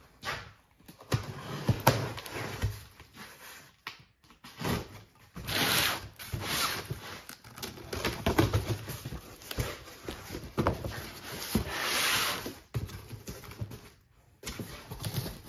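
Cardboard shipping box being handled and opened: cardboard scraping and rustling against cardboard, with knocks and clicks and two longer scraping noises, about six and twelve seconds in, as the box is turned and its flaps are pulled open.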